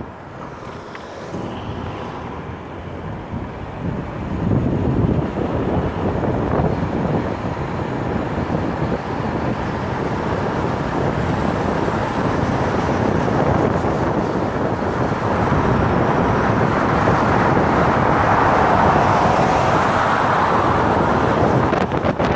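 Wind rushing over a roof-mounted camera's microphone, mixed with the car's tyre and road noise at highway speed. It grows louder over the first few seconds, then runs steady.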